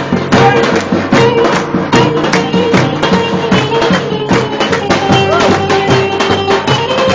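Lively Turkish folk dance music: fast, dense hand-percussion strokes under a held melody line.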